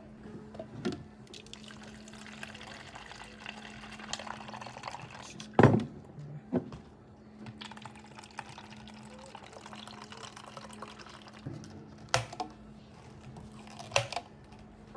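Milk tea being poured from a plastic shaker into plastic cups of tapioca pearls, with a few sharp knocks, the loudest about halfway through. A steady low hum runs underneath.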